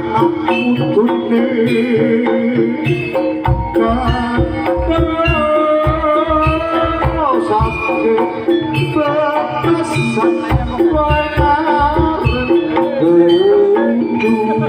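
Live jaranan music: a gamelan ensemble with kendang hand drums and a sung melody. The drumming becomes denser and heavier about three and a half seconds in.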